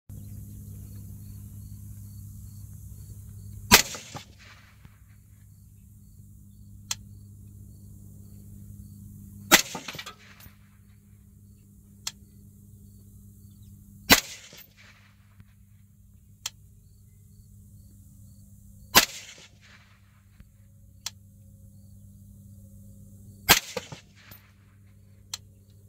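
Five suppressed rifle shots from an LMT MARS-H semi-automatic rifle fitted with a Dead Air Nomad 30 suppressor, fired about five seconds apart, each with a short trailing echo. Fainter sharp cracks fall in the gaps between shots.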